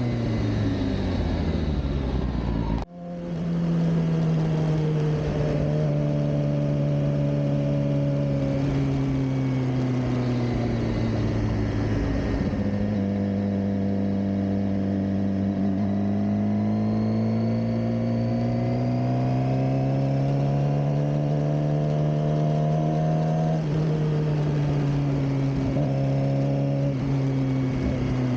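Suzuki GSX-R600 K7 inline-four engine running under way, its pitch falling off, then sagging and slowly rising again with the throttle at moderate revs. The sound cuts out sharply for a moment about three seconds in.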